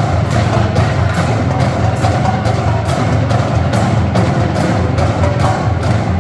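Marching drumline playing a loud, dense percussion passage with a steady driving beat of sharp strokes over heavy low drums, cutting off together on a final hit at the very end.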